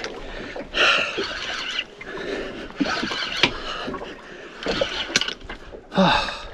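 Sea water sloshing against the hull of a small boat in three washes, a couple of seconds apart, with a few scattered clicks and knocks.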